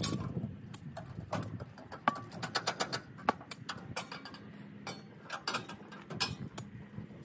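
Irregular sharp clicks and knocks, several a second at their densest through the middle.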